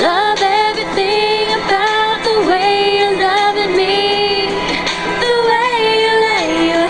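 A young woman singing a slow melody in long, held notes with vibrato, sliding between pitches.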